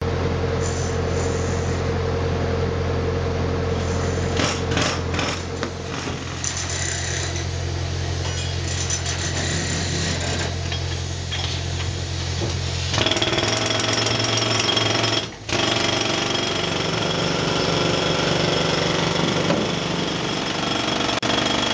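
Jackhammer hammering continuously as it breaks rock and soil, over a steady low hum. The sound changes abruptly about 13 seconds in and drops out for a moment soon after.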